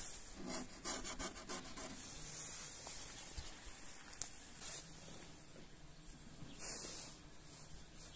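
Fingertips scratching at frost on a car's glass: a quick run of short, rasping strokes in the first second or so, then softer rubbing noise. A single sharp click about four seconds in.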